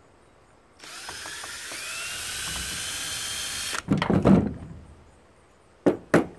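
Cordless drill/driver running for about three seconds, its whine rising slightly as it spins, backing a screw out of a small electric motor held in pliers. It is followed by a loud clatter of tools and metal parts set down on a plastic tailgate liner, and a few sharp metal clicks near the end.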